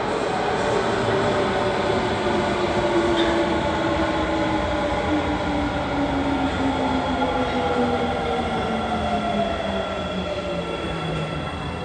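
Midosuji Line subway train running through the station: a rumble with a motor whine that falls steadily in pitch, and faint steady high tones above it.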